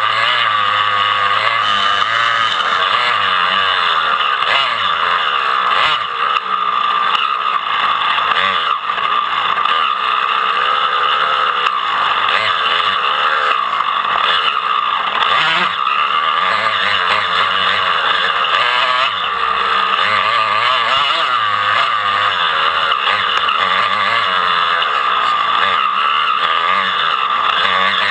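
Dirt bike engines running at high revs, the pitch wavering up and down continuously with the throttle.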